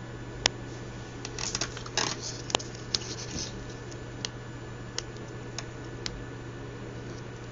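Handling noise on an electronics workbench: scattered sharp clicks and a few short scraping rustles, over a steady low hum.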